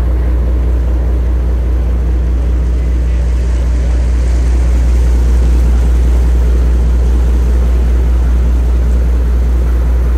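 Fishing boat's engine running steadily under way, a loud low drone with the rush of wind and water over it.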